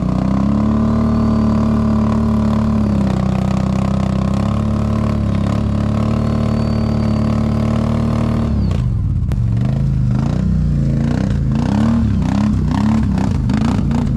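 ATV engine revved hard and held at a steady high pitch while the quad is under load on a steep climb. About two-thirds of the way in, the revs drop and turn to short, uneven throttle blips.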